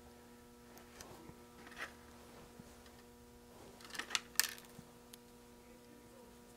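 Light clicks and taps of small electrolytic capacitors being handled and set down, with a quick cluster of sharper clicks about four seconds in, over a faint steady electrical hum.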